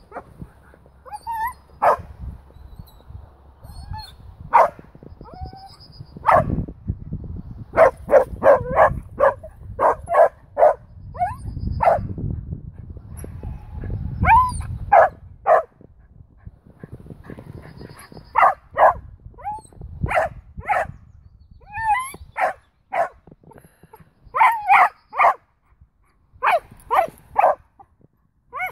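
Small dog barking excitedly in quick runs of several barks, mixed with some higher, pitch-bending yips and whines.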